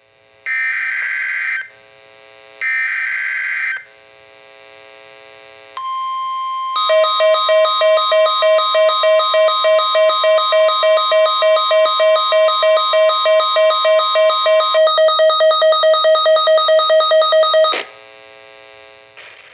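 NOAA Weather Radio Required Weekly Test signal: three short SAME digital header data bursts, then the steady 1050 Hz weather alert tone. A few seconds later a weather alert radio's alarm joins it, a louder pulsing beep about two to three times a second, and it cuts off abruptly near the end.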